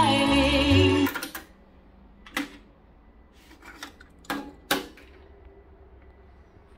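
A song with singing playing from an NAD 6325 cassette deck stops abruptly about a second in as the tape is stopped. Then a handful of sharp mechanical clicks and clacks follow as the deck's cassette door is opened and the cassette is taken out.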